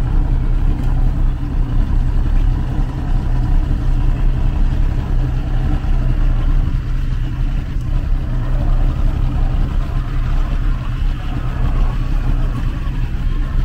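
A 2003 Mercury 250 EFI V6 two-stroke outboard idling steadily, an even low rumble as the boat idles along.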